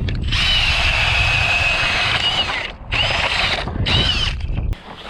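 Powered ice auger drilling a hole through the ice. A high motor whine runs for about two seconds, stops briefly, comes back twice for shorter runs, and cuts off suddenly near the end.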